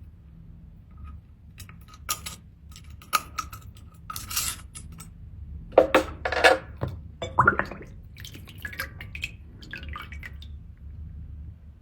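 Hard seashells clinking and clattering against each other and a dish as they are handled during cleaning, in irregular bursts that are loudest midway, with a little wet sound. A faint steady low hum runs underneath.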